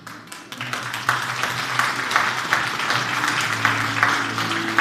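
Audience applauding, starting suddenly just after the start as a dense clatter of many hands clapping. Soft background music with low held notes continues underneath.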